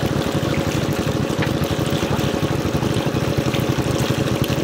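Engine-driven water pump running steadily with a fast low throb, while water gushes from its outlet hose through a bamboo trap into a fish basket.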